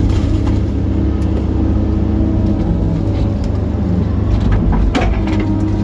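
Kobelco SK135SR excavator's diesel engine running steadily while the arm and bucket swing out over the water, heard from inside the cab. There are a few short knocks about five seconds in.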